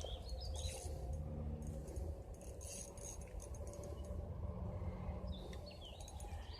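Faint outdoor ambience: a steady low rumble with a few faint bird chirps near the start and again toward the end, and light small clicks and clinks in the first couple of seconds.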